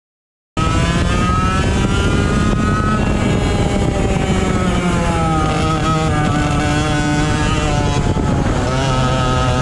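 Racing kart engine heard from onboard the kart, running hard through corners. It cuts in after a brief silence at the very start; its pitch sags as the kart slows through the middle and climbs again near the end as it accelerates.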